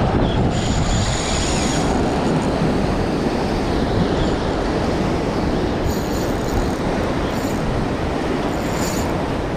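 Steady rush of wind on the microphone and breaking surf. Brief high whirs from the spinning reel come about a second in and several times later, as a hooked trevally is played on light tackle.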